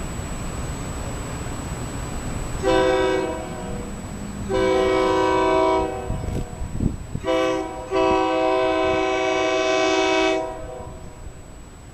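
Approaching train sounding its multi-note horn in four blasts: a short one, a longer one, another short one, then the longest, held about two seconds.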